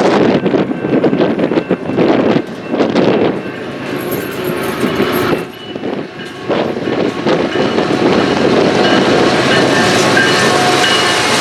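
Wind gusting on the microphone, then a BNSF freight train's diesel locomotives running louder and steadier as the lead units draw up and pass, with wheels rolling on the rails.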